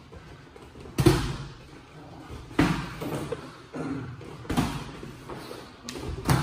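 Boxing gloves landing punches in sparring: four heavy thuds about one and a half to two seconds apart, with lighter knocks between them.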